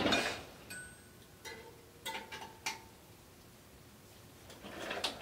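Bicycle front wheel spun by hand, a swish of the tyre and spokes, with the disc brake rotor lightly hitting the caliper pads now and then in faint metallic pings and ticks. The caliper is not quite centred on the rotor, and the rotor is cheap and finicky.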